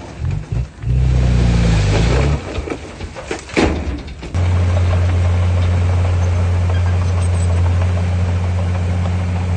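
Heavy earthmoving machine's diesel engine running under load. The engine eases off briefly and there is a sharp clank about three and a half seconds in, then it runs steadily at one pitch.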